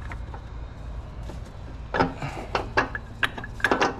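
Metal clinking and knocking as a worn engine mount is worked loose and pulled out from under the raised engine. It is quieter for the first two seconds, then comes a run of sharp knocks and clinks.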